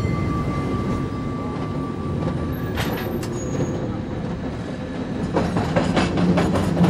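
San Francisco cable car running along its track: a steady low rumble with a faint steady whine, two sharp clicks about three seconds in, and a run of clanks and clicks near the end.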